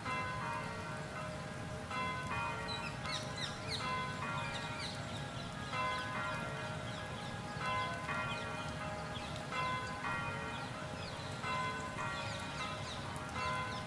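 Church bells change-ringing: a run of bell strokes that starts again about every two seconds, with high chirps over a low steady background rumble.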